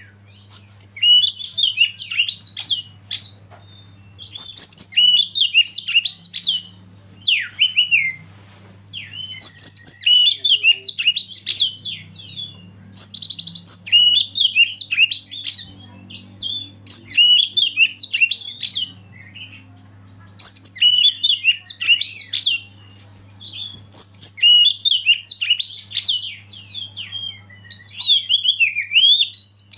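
Oriental magpie-robin (kacer) singing: bouts of varied, rapid whistled phrases a few seconds long, broken by short pauses, over a low steady hum.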